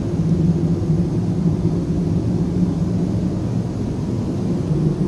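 A steady, loud, low mechanical drone that keeps going without a break.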